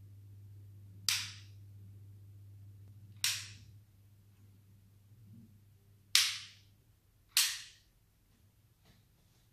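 Four sudden sharp cracks, each fading quickly, at uneven intervals, over a low steady hum that stops about seven seconds in.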